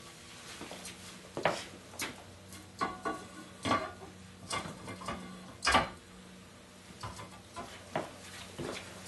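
A steel pipe being fitted over a knife blade clamped in a vise, giving a string of sharp metallic clanks and knocks with some ringing, the loudest about two-thirds of the way through.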